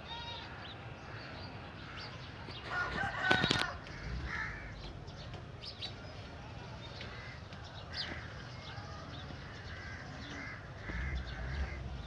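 Bird calls around the cattle sheds, with one louder crowing call, like a rooster's, about three seconds in, and shorter calls scattered through the rest.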